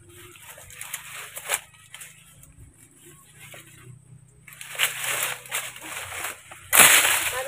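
Dry banana leaves and dead brush rustling and crackling as they are pushed and pulled apart by hand, with a sharp snap about a second and a half in and a louder burst of crunching near the end.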